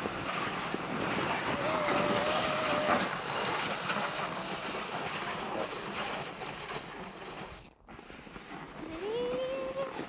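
Plastic sled sliding over packed snow as it is towed, a steady scraping hiss, with a few brief high-pitched vocal sounds, one held about two seconds in and one rising near the end.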